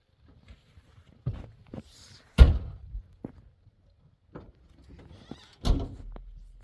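Car doors being shut with heavy thunks: a lighter one about a second in, the loudest about two and a half seconds in, and another near the end.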